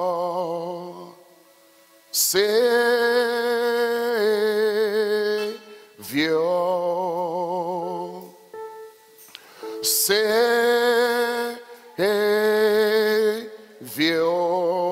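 A man singing a slow worship song solo, with long held notes and a wide vibrato, in phrases of a few seconds with short pauses between them.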